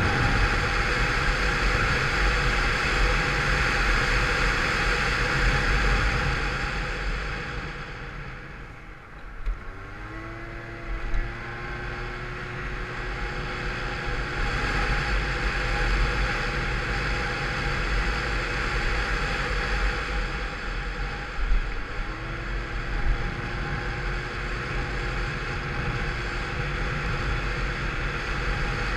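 Peugeot Vivacity 50cc scooter riding, its derestricted variator drive pulling, with wind rushing over the microphone. About seven seconds in the rush fades as it slows. Then the engine's pitch rises as it pulls away again, with a second rise a little past twenty seconds.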